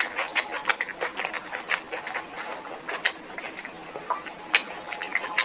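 Close-miked eating sounds: chewing and smacking, a quick, irregular run of wet clicks and crunches, several a second.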